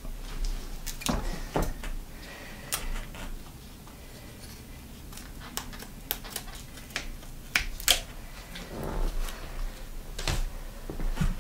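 Scattered light clicks and taps with soft rustling, the handling noise of hands wrapping and pressing handlebar tape onto a road bike's drop bars.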